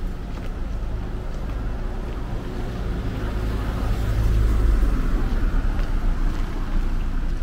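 Street traffic: car engines running and passing on the road, a low rumble that swells about halfway through as a car goes by.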